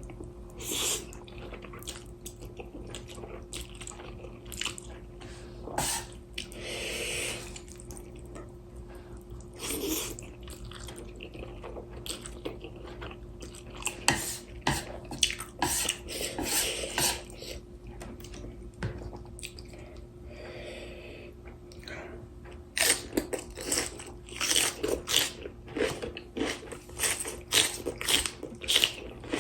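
A person eating spicy instant noodles and fresh kimchi close to the microphone: wet chewing and crunchy bites, with a few longer noisy stretches, and a quick run of crunching bites in the last several seconds. A faint steady hum runs underneath.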